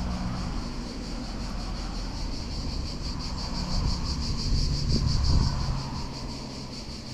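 Insects chirring steadily, a high sound with a fast, even pulse, over a low rumble.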